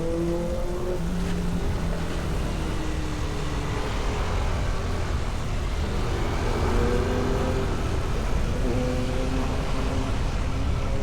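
Steady running noise of a vehicle on the road, with a constant rumble and hiss. Held tones over it shift in pitch every second or so.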